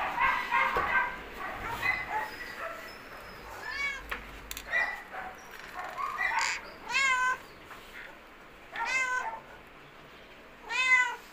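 Cats meowing: a string of separate meows, each well under a second long, coming about every two seconds.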